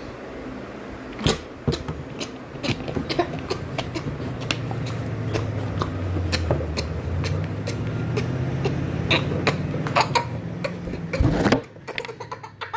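Person coughing over and over: many short, sharp coughs at irregular intervals over a low rumble. A sound rising in pitch comes near the end.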